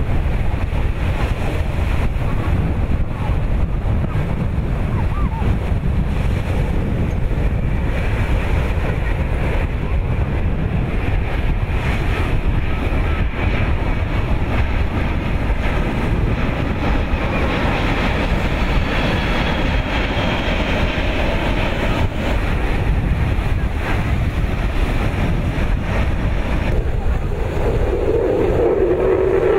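Steady rush of jet aircraft noise under heavy wind buffeting on the microphone: the distant four-turbofan engines of a C-17 Globemaster III transport. Near the end a louder, steady engine drone sets in as an F-22 Raptor fighter jet comes through.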